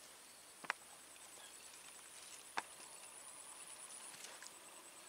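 Faint outdoor ambience: a steady high-pitched hiss with a thin high whine, broken by two short sharp clicks, one under a second in and one about halfway through.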